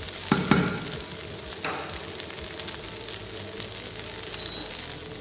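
Stir-fried noodles sizzling steadily in a frying pan, with a few knocks of a wooden spatula against the pan in the first two seconds as the stirring ends.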